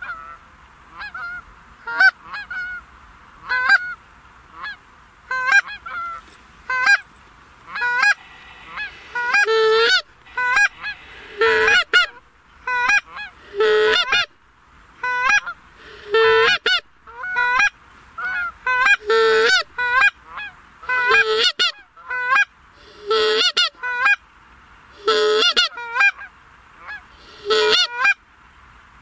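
Goose honks and clucks, single calls about once a second at first, then louder and more frequent with quick runs of calls from about nine seconds in.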